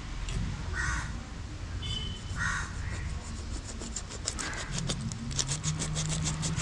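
A crow caws several times, about every two seconds. From about four seconds in, a knife cuts through the head of a kalava (azhuka) fish with quick sawing strokes.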